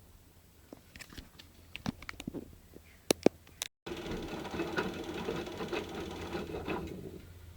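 Washing machine running during a wash cycle: scattered clicks and knocks at first, then, after a brief break, a denser steady churning with a fine rapid rattle for about three seconds that fades out near the end.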